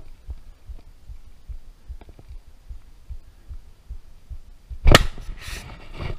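A single sharp shot about five seconds in, fired to kill a hooked alligator, followed by a brief rush of noise. Before it, only soft low thumps.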